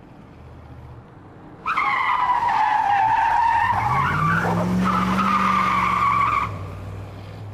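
Tires squealing in a long screech that starts suddenly about two seconds in and lasts nearly five seconds. An engine note rises beneath it about halfway through.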